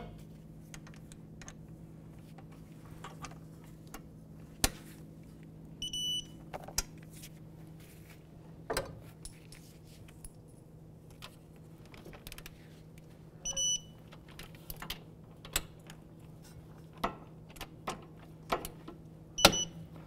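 Digital torque wrench beeping three times, several seconds apart, as the hub assembly's mounting bolts are re-checked at the 48 ft-lb set torque, with light clicks and knocks of the wrench and socket on the bolts over a steady low hum.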